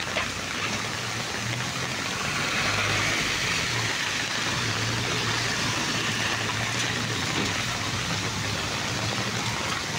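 Rainwater rushing along a flooded street as a steady noise, with the low hum of a vehicle engine underneath.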